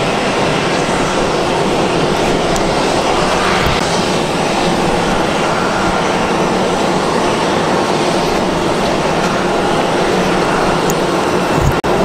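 Jet engines of an Airbus A320 airliner running at taxi power: a loud, steady rushing drone with a faint whine in it. It drops out briefly just before the end.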